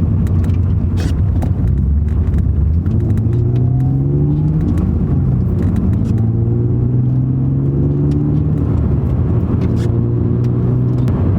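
BMW E36 320i's M52B20 straight-six accelerating hard. Its note rises, drops at a gear change about five seconds in, rises again and drops at another shift near nine seconds. No clicking is heard from the rear handbrake.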